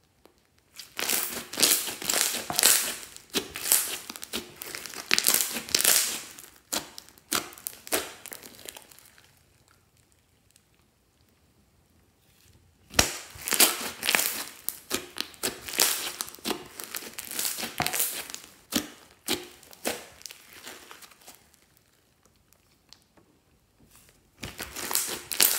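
Glossy slime being stretched, folded and squeezed by hand: a dense run of wet crackles and pops as air trapped in it is squeezed out. It goes in two long spells with a quiet pause of a few seconds between them, and starts again near the end.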